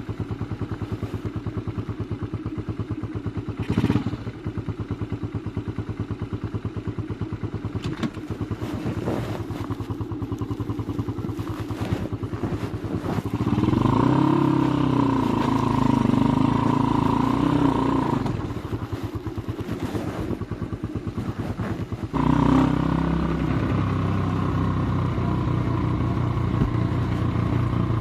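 Skygo Boss 150 single-cylinder motorcycle engine with a bottle-pipe exhaust, Nibbi PE26 carburettor and pod filter, idling cold with an even pulse. About halfway through it revs up, holds the revs for a few seconds and settles back. Near the end it suddenly becomes louder and runs steadily.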